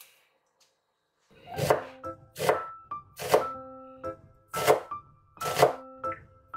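Background music comes in about a second and a half in: a slow, steady beat of sharp hits, each followed by held notes.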